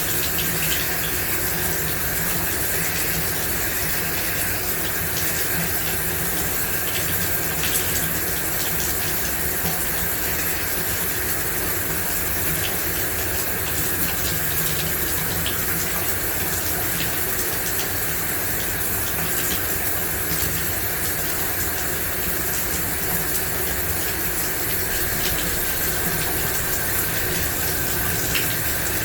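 Shower running: a steady, even rush of water spray hitting the floor, with faint scattered droplet ticks.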